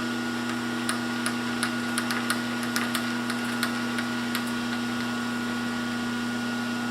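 Metal lathe running with a steady hum, with light scattered clicks and taps over the first four or five seconds.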